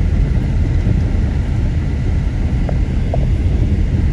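Car driving on a dirt road, heard from inside the cabin: a steady low rumble of road and engine noise with some wind buffeting.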